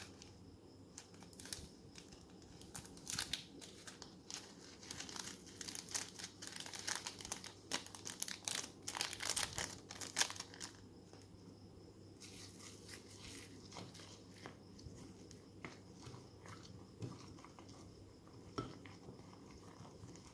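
Plastic ziplock bag crinkling and crackling as it is handled, with a dense run of crackles in the middle that thins out toward the end.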